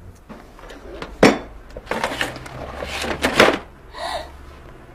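Clatter and rustling of a cosmetics bag and its contents being handled, with a sharp knock about a second in and a run of rattling near the middle.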